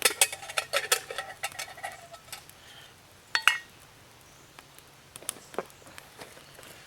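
Metal camp cookware being handled for tea: a quick run of clinks and knocks in the first two seconds, one short ringing clink about three and a half seconds in, then a few scattered light taps.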